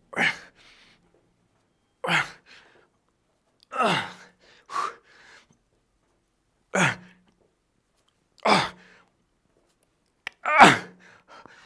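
A man's forceful grunts and exhalations of effort, about one every two seconds in time with the reps of a heavy incline dumbbell press, each falling in pitch. The last, about a second before the end, is the loudest as he strains through a set taken to failure.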